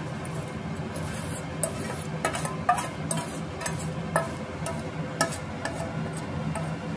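Steel spoon scraping, clinking and tapping against a stainless steel bowl and pot as dry vermicelli is pushed out into sugar syrup, about a dozen irregular clicks over a steady low hum.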